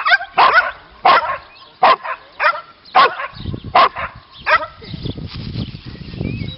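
A dog barking repeatedly, single sharp barks about twice a second, stopping a bit past halfway; over the last couple of seconds a low rumbling noise takes over.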